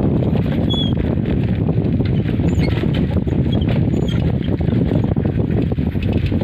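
Wind buffeting the microphone outdoors: a dense, fluttering low rumble. A few short high chirps of small birds sound over it.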